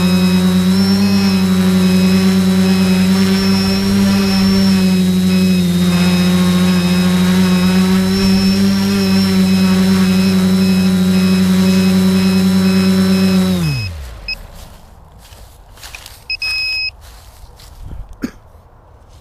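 SK450 quadcopter's brushless motors and propellers running at a steady pitch, then spinning down to a stop about 13 to 14 seconds in. A short electronic beep follows, then a few handling knocks.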